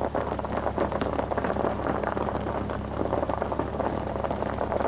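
Car engine running with a steady low hum under a dense, even crackling noise, heard from inside the car.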